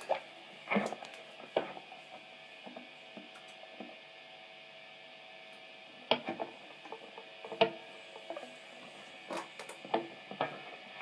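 Faint steady hum from an idle electric guitar rig, broken by scattered soft clicks and knocks from handling; no notes are played.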